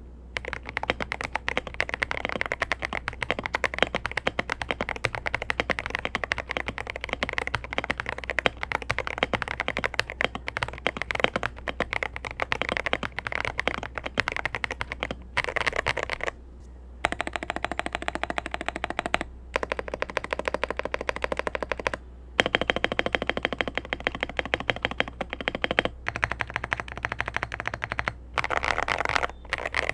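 Fast typing on an Akko 5098B Plus mechanical keyboard with ASA-profile keycaps: a rapid, continuous clatter of keystrokes with a deep, thocky tone, broken by a few short pauses.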